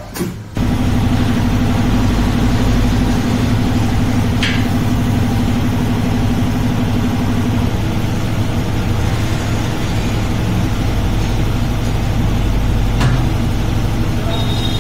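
An electric motor in a tyre shop starts abruptly about half a second in and runs steadily with a low hum. A couple of light metallic clicks sound over it.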